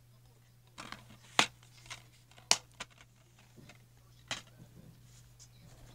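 Plastic DVD keep cases being handled: a series of sharp plastic clicks and snaps, the loudest about one and a half and two and a half seconds in, another a little after four seconds.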